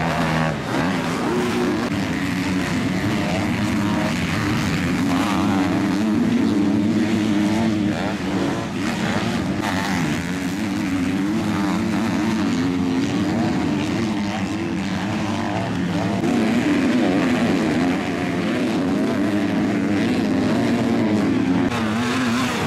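MX2 motocross bikes' 250cc four-stroke engines racing, revving up and down without pause, their pitch rising and falling with every throttle change.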